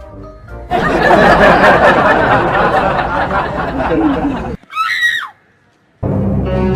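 Edited soundtrack: music fades out, then a loud burst of crowd laughter lasts about four seconds. A short high falling sound follows, then a moment of silence before music starts again near the end.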